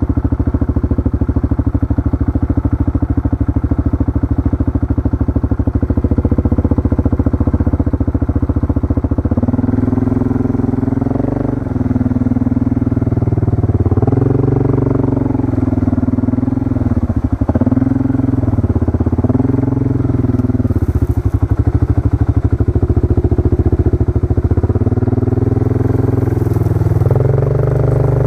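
Yamaha four-wheeler (ATV) engine running at low speed, with a steady pulsing note for the first several seconds. From about a third of the way in, it is throttled up and down again and again.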